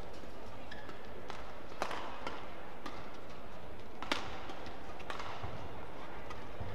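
Badminton rackets striking a feathered shuttlecock in a fast doubles rally: sharp cracks a second or two apart, the loudest about four seconds in on a jump smash, over the steady murmur of an indoor hall.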